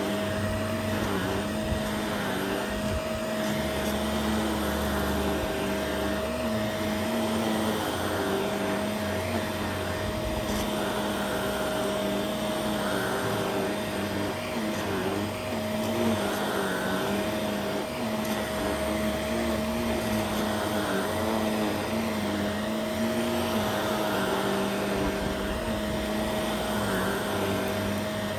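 Shark upright vacuum cleaner running steadily as it is pushed back and forth over a rug, a constant motor hum whose lower tone wavers slightly with the strokes.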